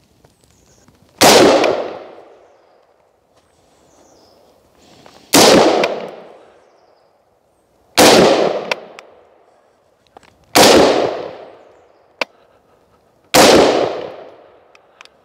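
Five single shots from an AR-15 rifle, fired slowly two and a half to four seconds apart, each shot dying away over about a second.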